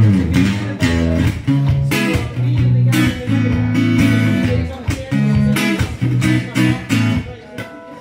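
Small-bodied acoustic guitar strummed in steady rhythmic chords, an instrumental passage between sung lines; the strumming thins out and gets quieter near the end.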